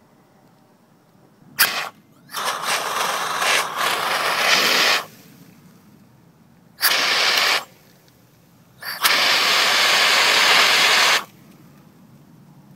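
Several bursts of hissing spray dousing a burning camera in a glass, each starting and stopping sharply, the last about two seconds long; the flames go out in a white cloud.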